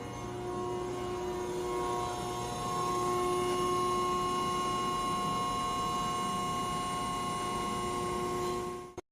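Hydraulic press brake running: a steady hum of several fixed tones from the hydraulic pump and motor. It grows a little louder about a third of the way in and cuts off suddenly near the end.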